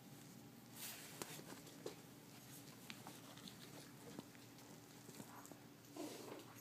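Faint rustling and light ticking of young puppies' paws scrabbling on soft bedding, with a brief puppy whimper near the end.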